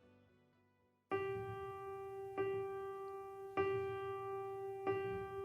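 Background music: after a moment of silence, a soft electric-piano chord is struck and held, repeating four times about every 1.2 seconds as a song intro.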